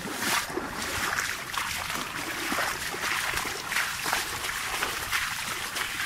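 Rain falling on dense, wet vegetation, a steady hiss, with irregular swishes of wet leaves and branches brushing past as someone walks through them.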